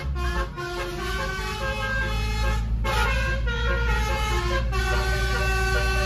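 Basuri telolet multi-tone air horn, driven by an electric compressor, playing a melody of held notes that step from pitch to pitch, with two short breaks between phrases. A steady low hum runs underneath.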